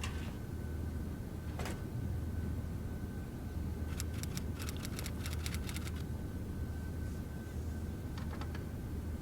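Computer keyboard and mouse clicks over a steady low hum: single clicks near the start and at about a second and a half in, then a quick run of about a dozen key taps from about four to six seconds in, and a few more near the end.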